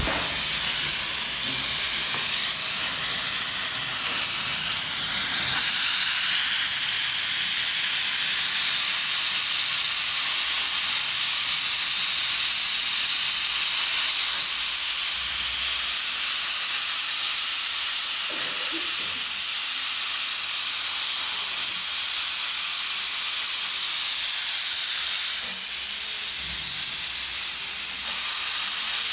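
Portable steam autoclave venting steam through its lid valve, a steady loud hiss. The chamber's air is being purged with the steam.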